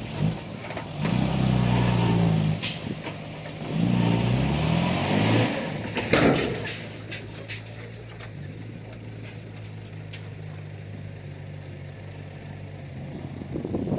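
Komatsu D31P bulldozer's diesel engine revving up and back down twice, then running steadily at a lower pitch. A quick run of sharp knocks and clanks about six to seven and a half seconds in.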